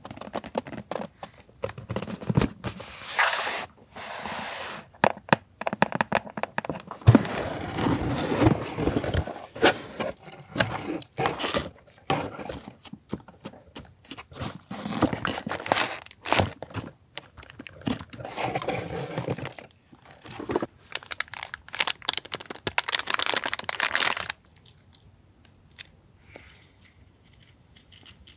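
Paper and packaging being handled, crinkled and torn as journaling stationery is unpacked, with many small taps and clicks. It goes much quieter about four seconds before the end.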